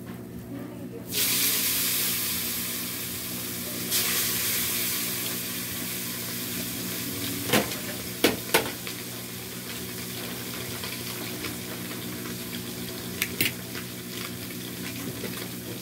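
Fish frying in hot oil in a wok. A loud sizzle starts suddenly about a second in as a piece goes into the oil, surges again about four seconds in, then settles to a steady, slowly fading sizzle, with a few sharp clicks of tongs against the pan.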